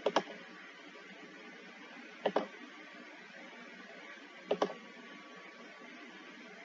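Three sharp double clicks, about two seconds apart, over a steady hiss.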